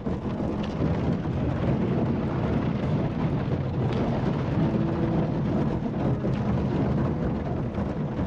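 Wind buffeting the microphone of a camera in a canoe, a steady low rumble, over the splash of paddle strokes in the water.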